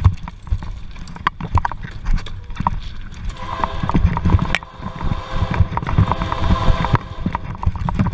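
Hurried footsteps and a bicycle clattering over railway ballast and sleepers inside a rock tunnel, with a low rumble. From about three seconds in, a train horn sounds steadily behind them.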